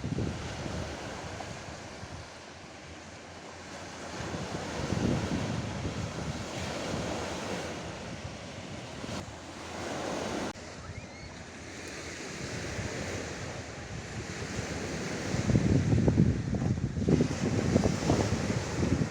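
Sea waves washing onto the shore, with strong wind buffeting the microphone; the wind gusts are heaviest in the last few seconds.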